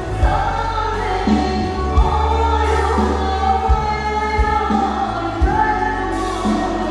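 Live band music with a woman singing into a microphone, holding long notes over a steady bass line and drum hits.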